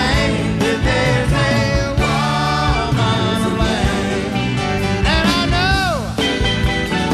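Live band music with electric guitar and drums, a man singing over it.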